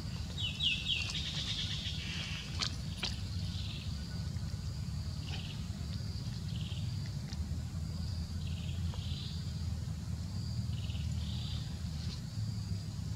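Outdoor ambience: a steady low rumble under faint, short high-pitched chirps that come every second or so. A quick run of falling chirps comes just under a second in, and two sharp clicks follow a couple of seconds later.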